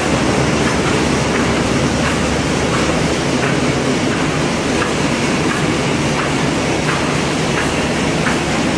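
Automatic electromagnetic-heating thermal laminating machine running steadily in production. It makes a continuous mechanical rumble with a light regular tick about three times every two seconds.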